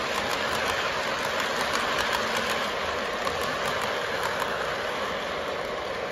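Lionel model train freight cars rolling past on the track: a steady rumble of metal wheels on the rails with light clicking, easing off near the end as the last car goes by.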